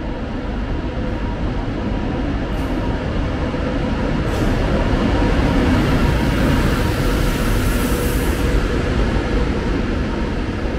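Double-deck TGV high-speed train arriving and rolling past along the platform. Its wheels and running gear make a steady rumble that grows louder as it comes alongside, with two short clicks early on and a brief high hiss later.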